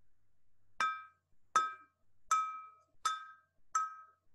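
A glass tumbler struck five times with a silicone kitchen utensil, about three quarters of a second apart, each tap ringing briefly with a clear, high pitch.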